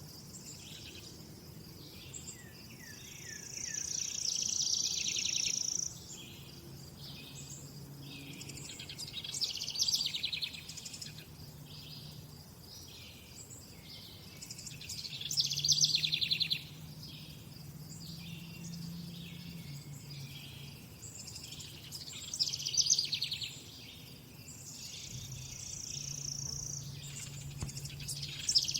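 Birdsong: a bird repeating a loud, high song phrase about every six seconds, several phrases ending in a rapid trill, over a steady background of fainter chirping.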